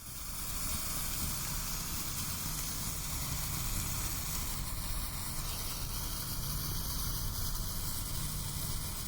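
Jet crackle firework, a crackling spark fountain, burning at normal speed: a steady, dense hiss of spraying sparks.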